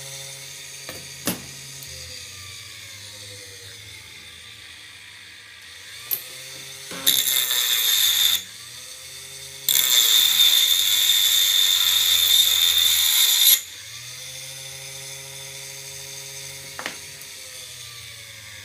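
Homemade electric grinder machine running steadily, with the work pressed against it twice: a short spell of loud grinding about seven seconds in and a longer one from about ten seconds to near fourteen. The motor's pitch dips under each load and climbs back afterwards.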